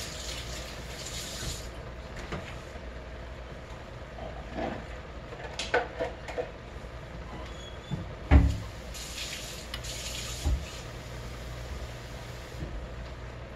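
Kitchen tap running briefly, at the start and again about nine seconds in, while a cup is filled with water; a few knocks and clunks come in between, the loudest about eight seconds in, over a steady low hum.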